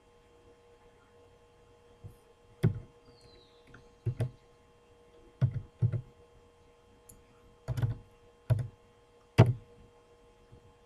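Sharp knocks at a computer desk, about eight at irregular spacing, some in quick pairs and the last the loudest, over a faint steady electrical whine.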